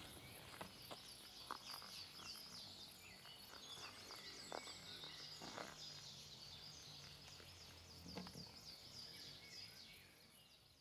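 Faint birdsong: many short, repeated high chirps from several birds, with a few soft knocks in between. It all fades out about ten seconds in.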